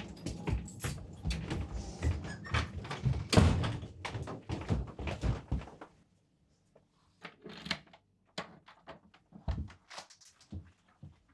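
Front door being opened and shut in a hallway: a run of knocks and clatter with one loud thunk about three and a half seconds in. After about six seconds it drops to mostly quiet with scattered faint clicks.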